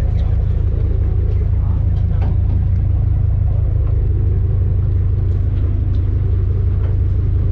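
Party boat's engine running, a steady low drone.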